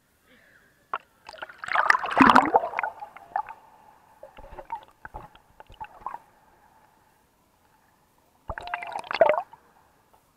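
Pool water sloshing and gurgling around a small camera as it is dunked under the surface, with muffled underwater bubbling and clicks. There is a loud burst of splashing about two seconds in and a second, shorter one near the end.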